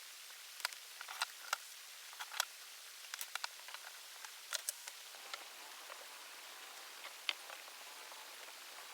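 Irregular light clicks and taps, about a dozen and clustered in the first five seconds, then a few more sparsely, over a steady hiss.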